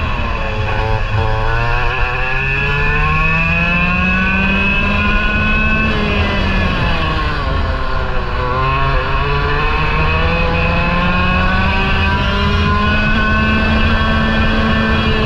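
Parilla SS20 two-stroke kart engine heard from on board the kart, revving under load. Its pitch drops as the kart slows for a corner right at the start, climbs for about five seconds, drops again around six to eight seconds in for the next corner, then climbs steadily once more.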